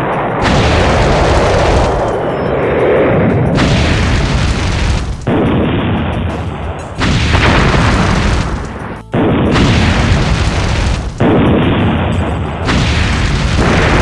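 Loud, continuous string of explosion and fire-blast sound effects, spliced together in segments that change every one to two seconds, with brief dips in level about five and nine seconds in.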